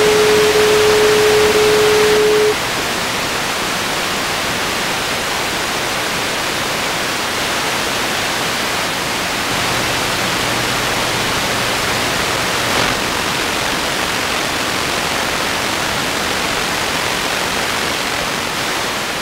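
Steady loud hiss of static-like noise that runs without a break. For the first two and a half seconds a steady single-pitch tone sounds over it, then stops abruptly, leaving the hiss alone.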